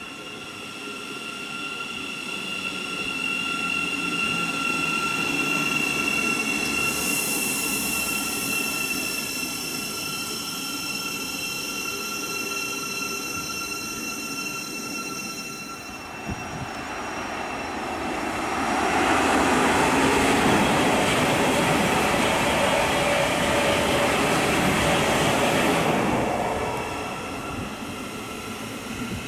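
A train running through a station. A steady high whine of several tones comes first, then about halfway through it swells into a loud rush of wheels on rail for about eight seconds, dropping away near the end.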